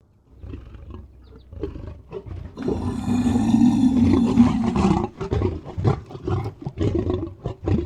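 A big cat growling low, then letting out one long, loud roar about two and a half seconds in that lasts some two and a half seconds, followed by shorter growls.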